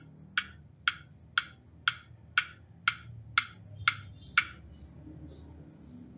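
Sharp, regular ticks, two a second, nine in all, stopping about four and a half seconds in, over a faint low rumble.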